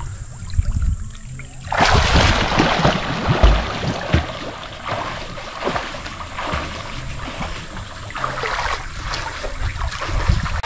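Water splashing in a swimming pool as a swimmer's strokes churn the surface, starting about two seconds in, with low wind rumble on the microphone.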